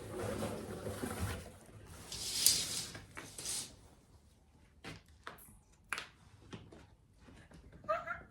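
Quiet handling sounds: soft rustling, two brief hissing rustles a couple of seconds in, then a few scattered light clicks and taps.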